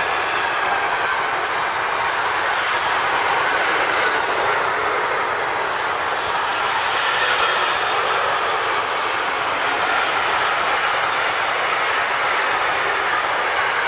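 Intermodal freight train wagons loaded with semi-trailers and swap bodies rolling past, giving a steady noise of wheels on rail.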